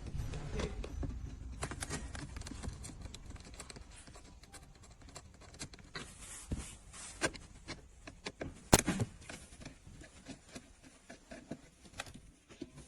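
Scattered small clicks and scrapes of a screwdriver backing out trim screws and plastic trim being handled, with one sharper click about nine seconds in.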